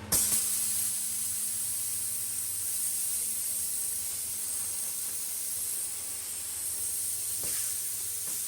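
Compressed air hissing steadily, cut in abruptly with a click.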